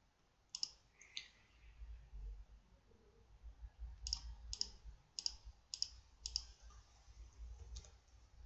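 Computer mouse button clicks: a pair about a second in, then a run of five about half a second apart, and one or two more near the end, over a faint low hum.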